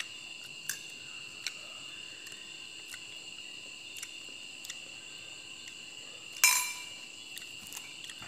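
Steady high chirring of crickets, with a few faint ticks. About six and a half seconds in, a fork clinks once, sharply, against the ceramic plate, with a short ring.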